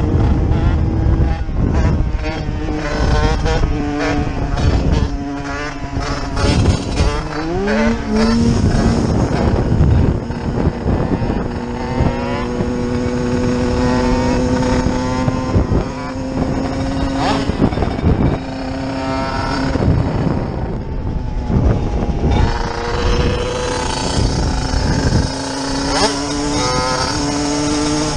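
Small supermoto motorcycle engines revving hard, their pitch climbing and dropping again and again through gear changes, as one bike is held up on its back wheel in a wheelie. Wind rushes over the microphone.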